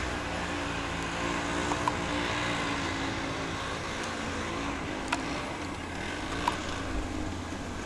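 Argo MAX II 6x6 amphibious ATV engine running steadily, its pitch wavering slightly, with a few sharp clicks or knocks over it.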